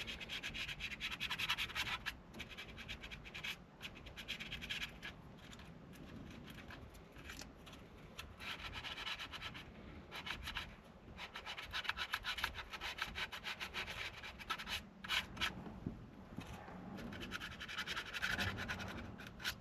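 Sandpaper (240 grit) rubbed by hand over a steering wheel rim in uneven back-and-forth strokes, a quiet scratchy sanding with short pauses between passes.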